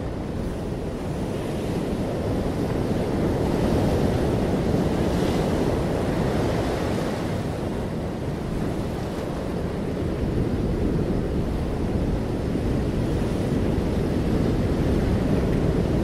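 Steady rushing noise of wind and surf over open water, a deep even roar with no distinct events, swelling a little about four seconds in.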